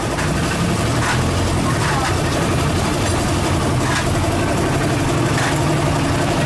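An engine idling steadily with a fast, even low hum.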